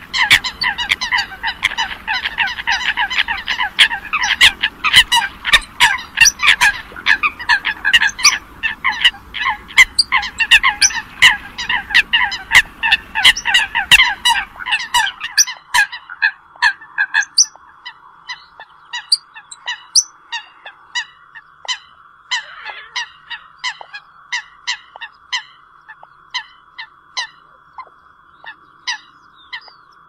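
Eurasian coots calling: a dense run of short, sharp calls repeated in quick succession, then thinning about halfway through to scattered single calls.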